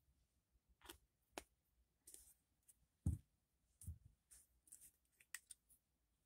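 Plastic squeeze bottles of UV resin being handled and set down on a tabletop: scattered light clicks and taps, loudest a dull knock about three seconds in and another just before four seconds.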